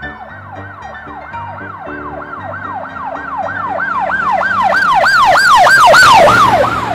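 Emergency-vehicle siren in a fast yelp, about three to four wails a second, growing louder until about six seconds in, then dropping in pitch and fading near the end, as a passing vehicle would.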